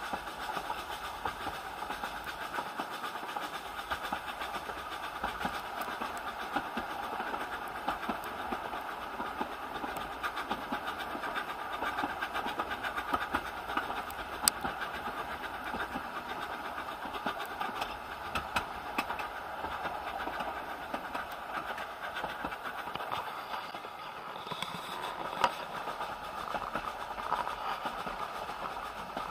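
A narrow-gauge Isle of Man Steam Railway carriage running along the line, heard from inside: a steady rumble and rattle of the carriage over the track, with a couple of sharp clicks, one about halfway through and one near the end.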